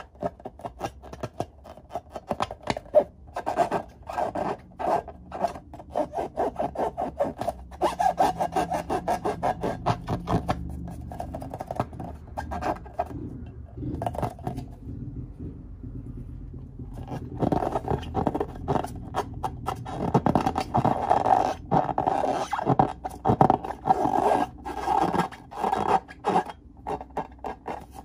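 Hands rubbing and squeezing filled latex balloons, a rapid run of rubbing and scraping strokes against the rubber, with a break of about two seconds midway.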